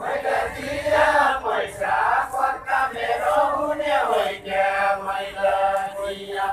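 A line of men singing a Far-Western Nepali deuda verse together in a chant-like group song, unaccompanied.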